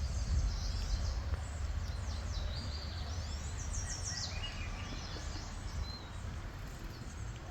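Birds chirping and trilling over a steady low rumble.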